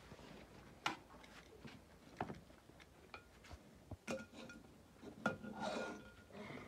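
Faint, scattered clinks and knocks of dishes and utensils being handled, with a brief metallic ring in the second half.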